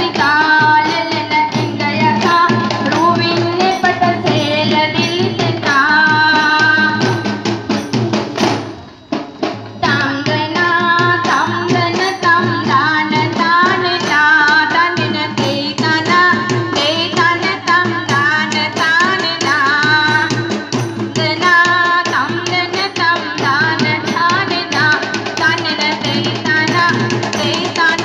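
Dance music: a song with high voices singing over quick, steady hand-drum beats. The music drops out briefly about nine seconds in, then resumes.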